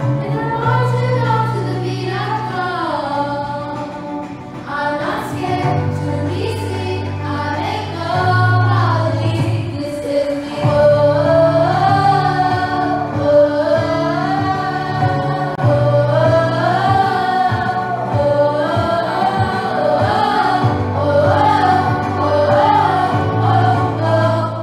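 Background music: a song with a sung melody over sustained bass notes.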